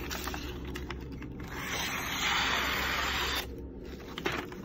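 A sheet of paper rustling and crinkling in the hand, then a steady papery hiss for nearly two seconds from about a second and a half in: a freshly sharpened knife edge slicing through the sheet, the usual paper-cutting test of sharpness.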